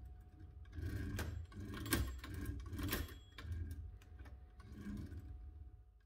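Mechanism of a 1931 Urania 7 typewriter being worked by hand, with the margin bypass button and carriage in use: a series of irregular mechanical clicks and clacks, about one or two a second.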